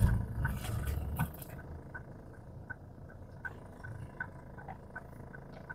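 Car turn-signal indicator ticking steadily inside the cabin, about two and a half clicks a second, over low engine and road rumble that is stronger in the first second and a half.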